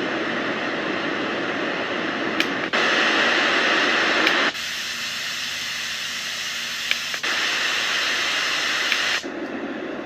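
Small plug-in white noise machine playing a steady hiss, switched through several noise settings by button clicks: about every two seconds a click is followed by the hiss jumping to a brighter or duller tone.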